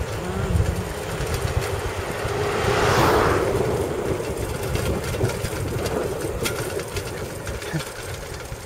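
Wind rushing over the microphone of a bicycle descending at speed, a steady low rumble. About three seconds in, an oncoming van passes, its sound swelling and then fading.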